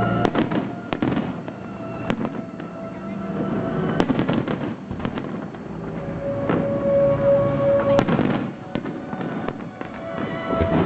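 Fireworks display: a dense run of bangs and crackling shells, with sharp reports standing out about two, four and eight seconds in, while music plays along with it.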